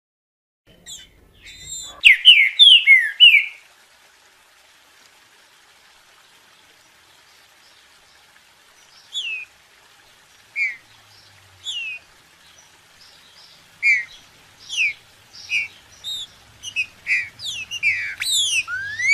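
Green-winged saltator (trinca-ferro) singing: a quick, loud phrase of descending whistled notes about two seconds in, then a pause, then single downward-slurred whistles about one a second, coming faster near the end.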